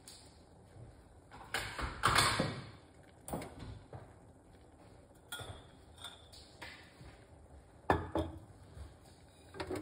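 Kitchenware clatter: several separate knocks and clinks of pots and utensils spread through the stretch, the loudest and longest about two seconds in and a sharp one about eight seconds in.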